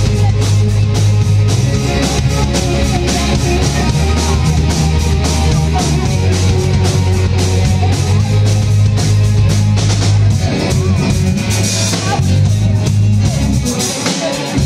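Live classic-rock band playing loud: electric guitars and bass guitar over a drum kit, with steady bass notes and regular drum and cymbal hits.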